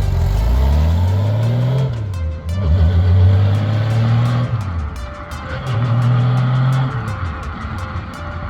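Honda Gold Wing GL1800 trike's flat-six engine running under throttle. The revs climb, drop back, hold, then climb and fall again.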